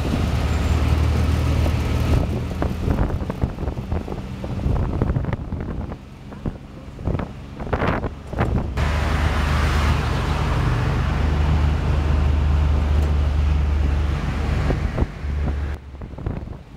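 Ride in an open-sided tuk-tuk: its small engine running under wind buffeting the microphone, with passing road traffic. The low rumble eases off for a few seconds in the middle, then comes back.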